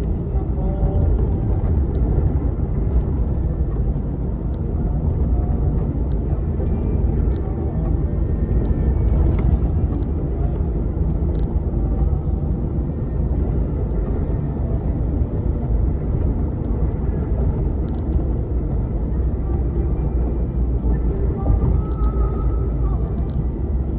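Car driving along a road: steady low rumble of engine and tyres, with a few faint ticks.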